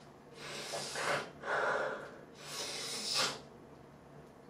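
A man snorting a line off a tabletop: three long, noisy sniffs, one after another, in the first three seconds or so.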